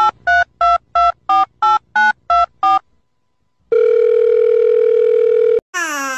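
Touch-tone telephone keypad beeps: about ten quick two-note presses in about three seconds. After a short pause a steady phone tone sounds for about two seconds and cuts off suddenly. A person's wailing voice starts near the end.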